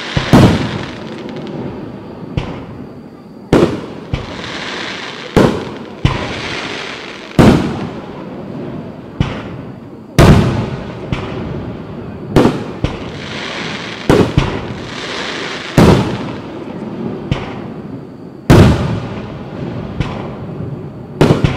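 Fireworks bursting in quick succession, a sharp bang every one to two seconds, each trailing off. A hissing crackle follows several of the bursts.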